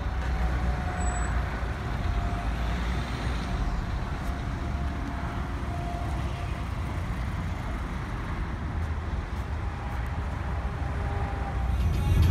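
Steady low rumble of vehicle engines and traffic, with a faint wavering hum above it.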